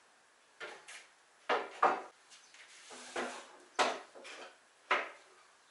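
Sharp wooden knocks and clatters from lumber being handled and set down, about six in all, the loudest pair about one and a half to two seconds in.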